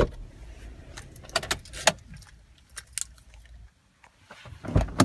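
A sharp click as the car's glove box lid is shut, then scattered light clicks and jingling of keys being handled, with a low thud near the end.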